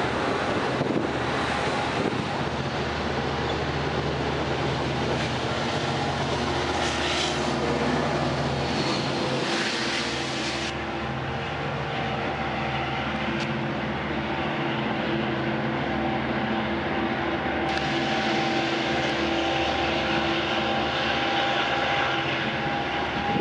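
Long Island Rail Road bi-level passenger coaches rumbling along the platform. After a cut, a DE30AC diesel locomotive runs with a steady drone.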